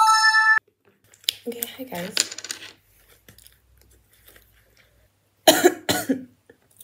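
A short electronic beep at the start, then a woman coughs twice, the coughs about half a second apart near the end.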